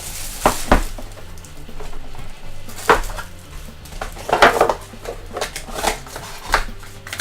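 A sealed box of trading cards being handled and opened: scattered short clicks, taps and crinkles of cardboard and wrapper, with a cluster of them between about four and five seconds in.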